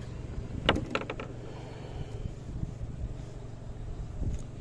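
A quick run of about four sharp clicks or knocks about a second in, over a low steady hum.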